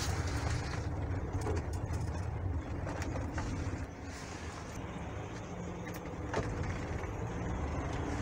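Engine and road rumble heard from inside a moving tour bus: a steady low drone with a few small clicks and rattles.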